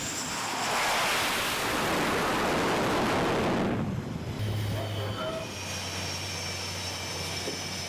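A jet aircraft's rushing noise swells for about three seconds and dies away. After it comes a steadier engine hum with a high whine.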